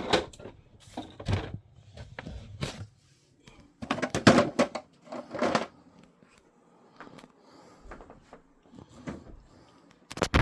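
Irregular knocks and clatter of objects being handled and set down, with some rustling in between. The busiest stretch comes about four to five and a half seconds in, and another loud clatter comes at the very end.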